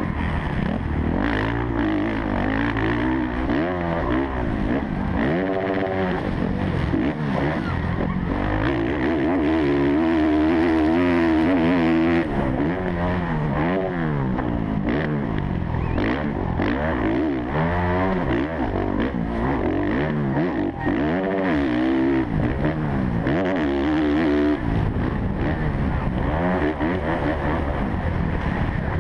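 Kawasaki KX450F single-cylinder four-stroke motocross engine under race throttle, its pitch climbing and dropping again and again as the rider revs it out, shifts and backs off between jumps and corners.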